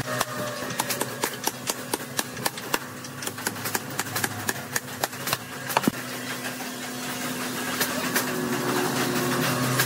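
Hammer blows on the wooden face of a cable reel, quick sharp knocks about four a second with one louder knock near six seconds, then they stop. A steady engine hum runs underneath and grows stronger in the second half.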